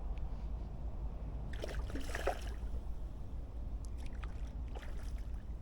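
Water sloshing and trickling at the shore over a steady low rumble, with a short louder burst of noise about two seconds in.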